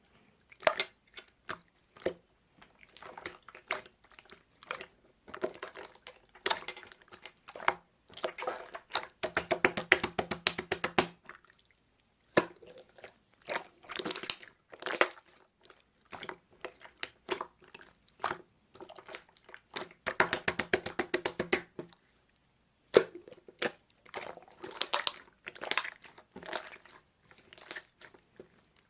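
Slime being kneaded and pressed by hand, making bursts of crackly, popping, squishy clicks. Fast runs of clicks come about ten seconds in and again about twenty seconds in.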